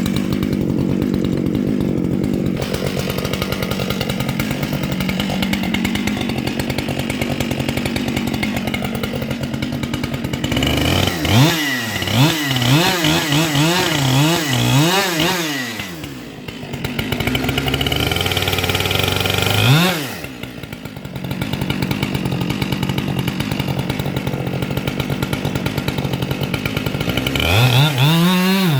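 Gas chainsaw idling, then revved up and down several times in quick succession, revved once more briefly, and revved again near the end.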